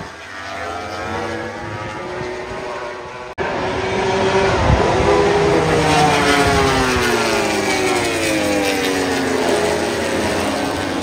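MotoGP racing motorcycle engines at high revs, several at once, their pitch rising and falling as they pass and brake. There is an abrupt cut about three seconds in, after which the engines are louder and several pitches fall away over a few seconds.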